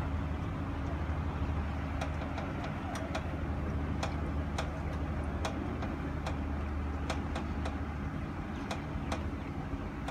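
Steady low engine hum from an idling vehicle, easing off about eight seconds in. Over it come sharp footsteps on concrete, roughly one a second, from about two seconds in.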